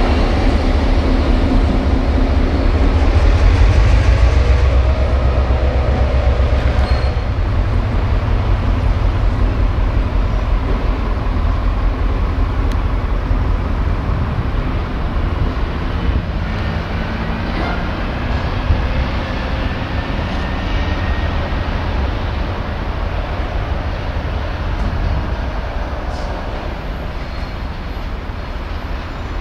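NOHAB MY-class diesel locomotive with an EMD two-stroke V16 engine running as it passes close while shunting. It is loudest a few seconds in, then fades gradually as the locomotive moves away.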